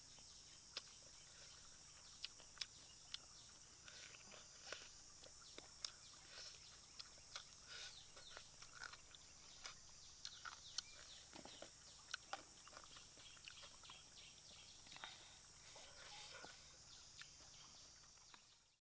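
Close, wet chewing and lip-smacking of someone eating boiled chicken thigh, many short irregular smacks and clicks over a steady high background hiss. The sound fades out at the end.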